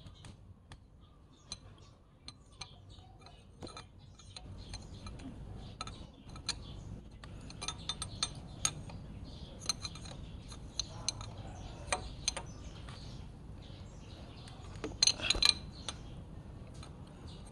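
Scattered light clicks and clinks of hands and a tool handling wiring, connectors and metal parts on a motorcycle frame, with a louder burst of clatter about fifteen seconds in.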